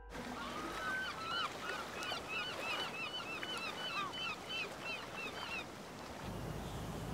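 A flock of wild birds calling: many short, overlapping calls that rise and fall in pitch. The calls thin out and stop near the end, as a low steady rumble sets in.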